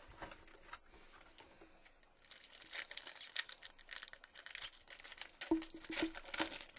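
The foil wrapper of a Topps Chrome trading-card pack being torn open and crinkled in the hands. Light handling turns into a dense, crackly rustle about two seconds in that lasts until just before the end.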